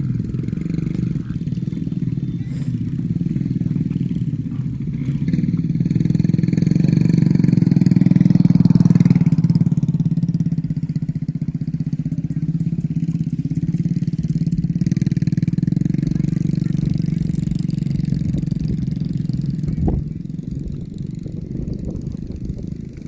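An engine running steadily, swelling louder about a third of the way in and easing off again, with a short knock near the end after which it runs quieter.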